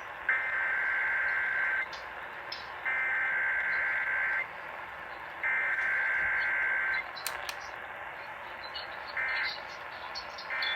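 Emergency Alert System SAME header data tones: three identical bursts of about a second and a half each, a harsh buzzing data signal, opening an EAS test. They are followed near the end by short data bursts of the end-of-message code, over steady broadcast-radio hiss.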